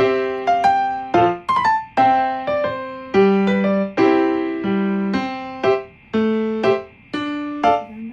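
Background music: a light, bouncy electric-piano melody of separate plucked-sounding notes, several a second.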